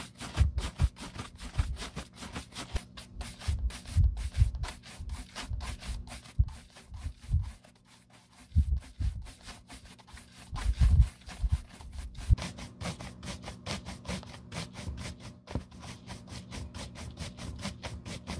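A bristle shoe brush swept rapidly back and forth over a smooth black leather loafer upper, a fast run of rubbing strokes with a short pause about eight seconds in. This is brush-buffing the leather to a shine.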